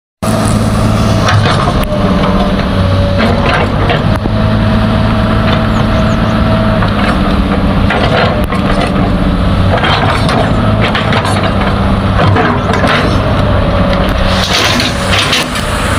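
Komatsu PC200 hydraulic excavator's diesel engine running steadily under load with a steady whine, while brush and branches crack and snap and soil and rocks crunch under the bucket, with sharp cracks coming every second or two.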